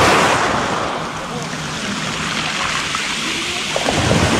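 Small waves washing up a pebble beach and draining back through the stones, a steady hiss of water that swells near the start and again near the end.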